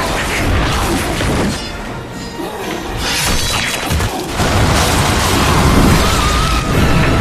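Action-film soundtrack: music mixed with crashing and smashing sound effects.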